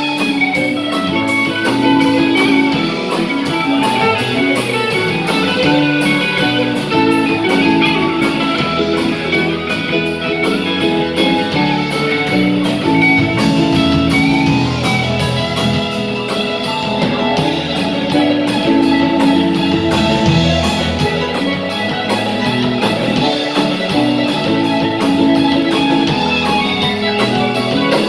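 Live rock band playing an instrumental passage: electric guitar over bass and a drum kit keeping a steady beat.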